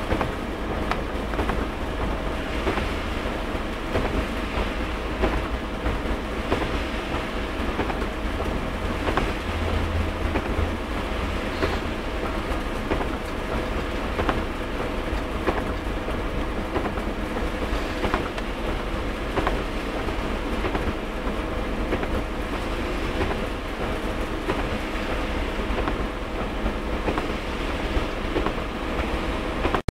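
Heavy rain falling, a dense noise of drop impacts with many small ticks, over a steady low rumble.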